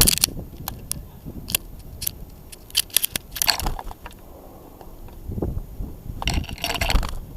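Birds at a plastic window feeder: scattered sharp taps and clicks of beaks and claws on the plastic, with two short rustling, fluttering bursts, one about three and a half seconds in and one near the end.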